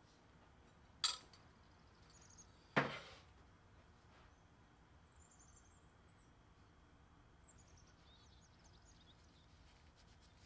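Two sharp clinks of a metal spoon against a ceramic bowl, about a second and a half apart, the second louder with a short ring. Faint high bird chirps follow later.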